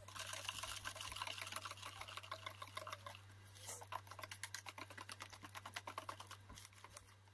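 Wire whisk beating flour into a runny kefir batter in a bowl: a fast, regular run of light clicking and swishing strokes as the wires hit the bowl and stir the liquid, over a low steady hum.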